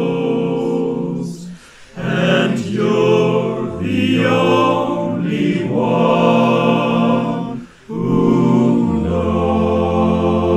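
Male voice choir singing a cappella in held chords, breaking off briefly twice. A low bass note enters near the end.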